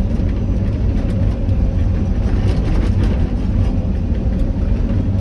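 Excavator's diesel engine running steadily, with a deep low rumble and a faint steady whine above it.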